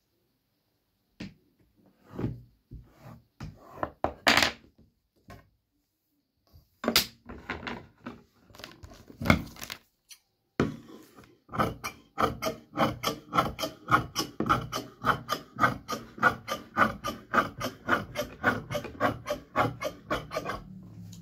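Scattered scraping and rubbing as tailor's chalk is drawn along a ruler over fabric and the ruler is handled. Then, about halfway through, large tailor's shears start cutting through the cloth in a steady run of snips, about three a second.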